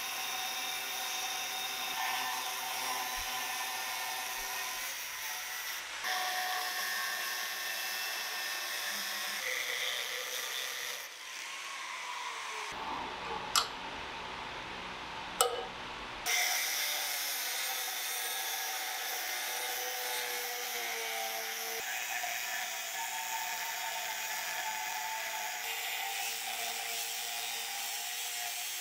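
Angle grinder with a thin abrasive cut-off disc cutting into the hardened steel of an old file: a steady high whine with grinding hiss. About halfway through the grinding stops, and there are two sharp cracks as the scored steel is snapped with pliers. Then the grinder cuts again.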